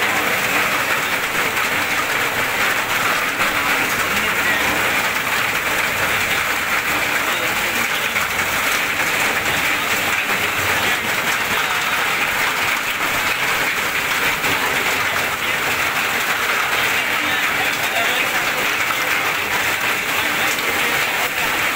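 Heavy downpour falling on a flooded street, a steady dense hiss of rain splashing into standing water.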